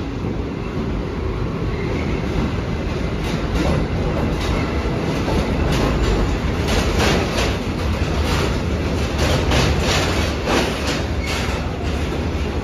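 Freight train passing close by: an electric locomotive followed by container flat wagons carrying tank containers. Steady rumble with the wheels clattering over rail joints, the clicks starting a few seconds in and then repeating regularly.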